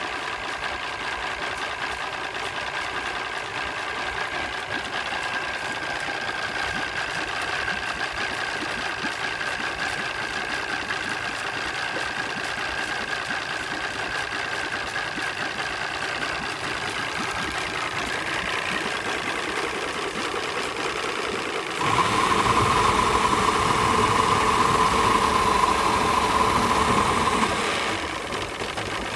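Mariner 200 EFI two-stroke V6 outboard idling roughly. About three-quarters of the way through it grows louder for about six seconds, with a steady whine on top, then drops back to its idle.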